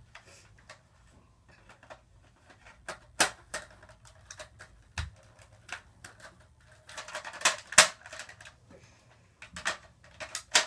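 Hard plastic clicks and clacks from a Nerf blaster being handled and its attachments snapped on, irregular and sharp, with a dull knock about five seconds in and a louder flurry of clacks around seven to eight seconds in.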